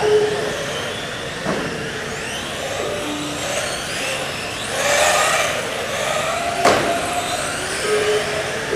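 Several small recoil-start nitro RC cars racing, their tiny engines revving up and down in overlapping whines. Two sharp knocks stand out, the louder one about two-thirds of the way through.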